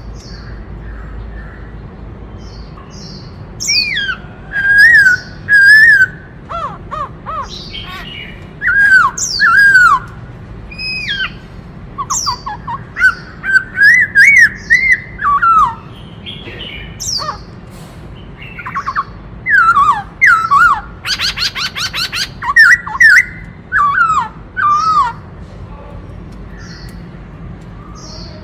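Black-throated laughingthrush singing: loud, varied whistled phrases of sliding and falling notes, broken by short pauses, with a fast trill about three quarters of the way through.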